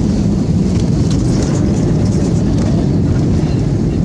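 Inside the cabin of a jet airliner rolling along the runway after touchdown: a loud, steady low rumble of the engines and the wheels on the runway.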